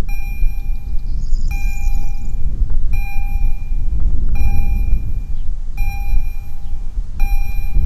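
Level-crossing warning bell striking at a steady pace, about one short ringing stroke every second and a half, signalling that the crossing is being closed for an approaching train. A steady low rumble runs underneath.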